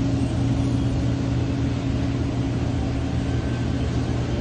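Steady low mechanical hum at an even level, with a constant pitch.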